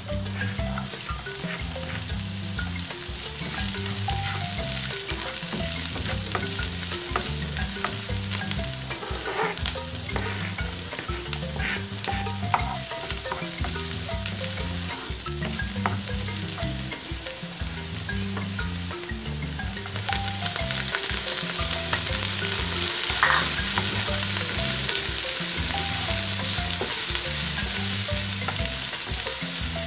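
Diced onion, garlic and sliced green chili sizzling in hot oil in a nonstick frying pan, stirred and pushed about with a spatula, with scattered clicks of the spatula on the pan. The sizzle gets louder about twenty seconds in.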